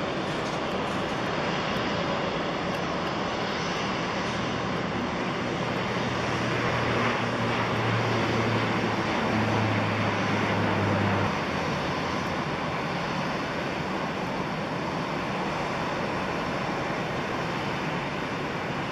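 Airbus A319 jet airliner rolling out on the runway after touchdown: a steady rush of jet engine noise. A low hum swells for several seconds and then drops back suddenly about eleven seconds in.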